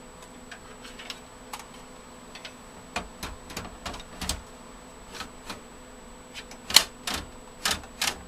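Irregular light clicks and knocks from a metal drive-bay cage with a hard drive being handled and fitted into a computer case. They grow louder and closer together in the second half, with a few sharper knocks near the end.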